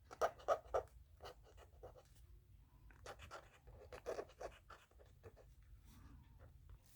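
Marker tip scratching in short repeated strokes while drawing, in two bursts: one right at the start and another from about three to four and a half seconds in.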